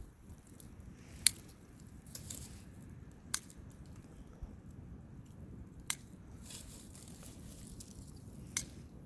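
Pruning shears snipping apple-tree branches: four sharp snips a couple of seconds apart, with twigs rustling between cuts.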